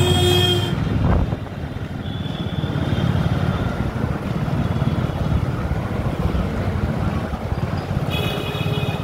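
Steady low rumble of a motorcycle being ridden through town traffic, with a vehicle horn honking briefly at the start and again about eight seconds in.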